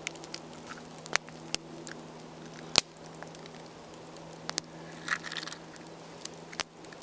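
An eggshell being cracked open by hand: scattered sharp clicks and cracks, the loudest about three seconds in.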